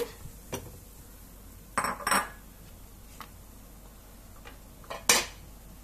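A handful of separate clinks and knocks of a bowl and cooking utensils against a metal kadhai while soya chunks are tipped into boiling water. The loudest clink comes near the end, with a low, even background between the knocks.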